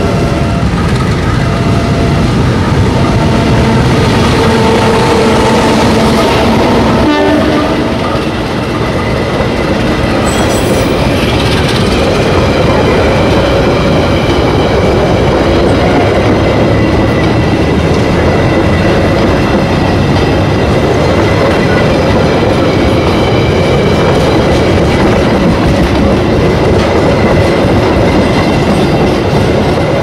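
Diesel-hauled passenger train passing close by: a horn sounds in the first seconds as it approaches, then the locomotive and a long run of coaches go past with steady wheel-and-rail noise and clickety-clack over the rail joints.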